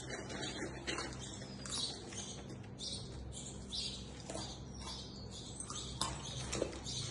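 A dog eating from a steel bowl: irregular crunching and chewing, with a few sharp clicks about a second in and again near the end.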